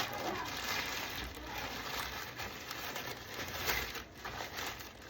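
A parcel's plastic packaging being torn open and crinkled by hand, in irregular rustles and small rips.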